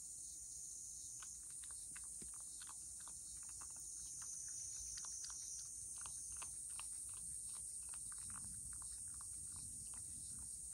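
Cat licking a Churu-style lickable paste treat from a bowl: quick, faint wet tongue clicks, several a second, in an uneven rhythm.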